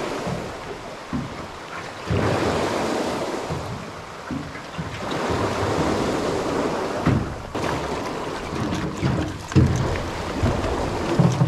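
Wind buffeting the microphone over choppy sea water lapping and splashing around a small boat, in rushing surges.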